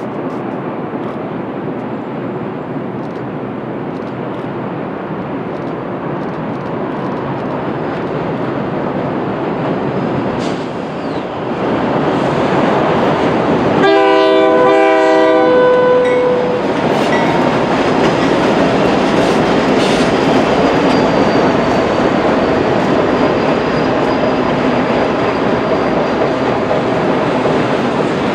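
CN train rolling by, the rumble and clatter of its wheels on the rail growing louder. About halfway through, the locomotive's air horn sounds one chord-like blast lasting about two and a half seconds.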